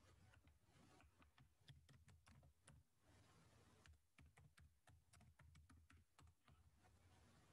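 Faint typing on a computer keyboard: two runs of quick key clicks with a pause of about a second in between.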